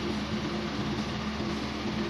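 Electric motor running with a steady hum.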